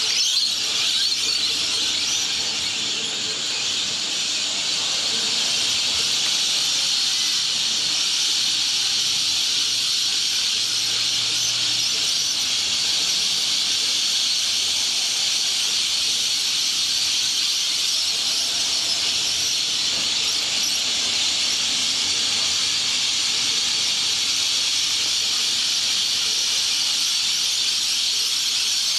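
A large flock of lorikeets calling in flight, many high-pitched calls merging into one steady, continuous din.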